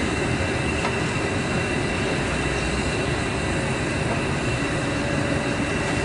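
Sugar beet piler running: a steady, loud machinery noise with several constant high whining tones, as its conveyors and rollers carry beets up the boom onto the pile.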